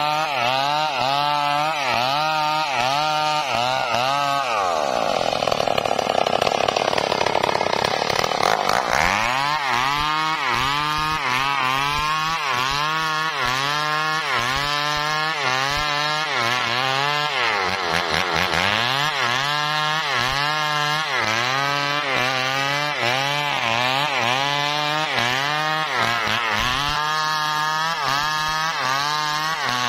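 Gasoline chainsaw cutting through a log at full throttle, its engine pitch dipping and recovering about one and a half times a second as the chain loads in the cut. Twice, at about four seconds and at about eighteen seconds, the pitch sags further before climbing back.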